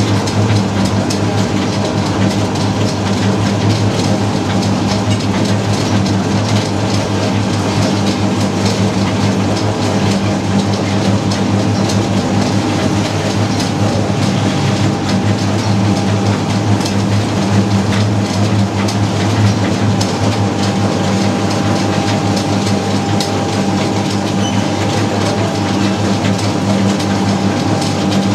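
Small petrol engine running steadily, driving a naswar-making machine, with the metal pan and linkage rattling and clattering throughout.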